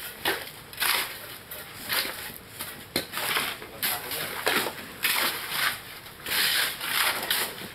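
Shovels scraping and scooping concrete mix off gravelly ground into buckets: a gritty scrape every half second to a second, with one sharp clack about three seconds in.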